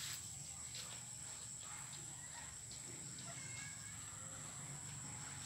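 Faint outdoor ambience: a steady high-pitched insect drone with a few faint, brief bird chirps.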